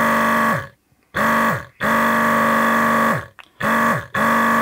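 Weller DS801 desoldering station's vacuum pump buzzing in short runs, about five times, as the pump-run button is pressed and released. Each run holds a steady pitch, then drops in pitch as the pump winds down. The pump is working.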